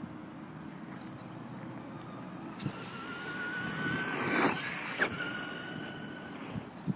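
Electric motor of a Traxxas Monster Mutt RC monster truck whining as it speeds up, the pitch rising for a couple of seconds. The whine is loudest about four and a half seconds in, with a rush of tyres on dirt and a sharp click, then it holds steady until about six seconds in.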